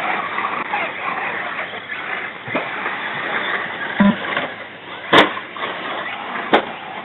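Remote-control cars running on a dirt track, a steady whirr of motors and tyres, with two sharp knocks about five and six and a half seconds in.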